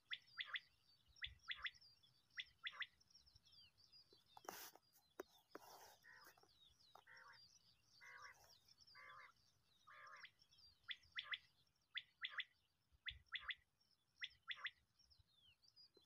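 Common quail calling: short, sharp notes in groups of two or three, repeated about once a second, with some lower, rougher calls in the middle stretch. A single sharp knock about four and a half seconds in, and fainter small-bird chirps behind.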